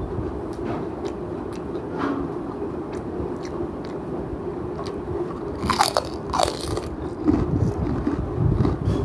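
A person chewing food close to the microphone, with two loud crisp crunches about six seconds in, then heavier chewing.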